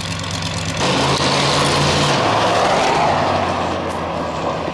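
Chevy 350 V8 with side-exit exhaust idling steadily, then, about a second in, louder as the truck accelerates away, the engine note rising briefly and then slowly fading.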